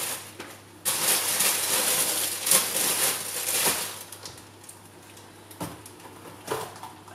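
Vegetables and their plastic packaging being handled, a rustling crackle for about three seconds, then a few knife taps on a plastic chopping board.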